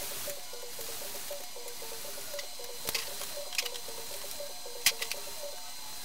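Kitchen utensils clacking three times against cookware, sharp and short, the loudest about five seconds in, over a steady hiss and a faint repeating melody.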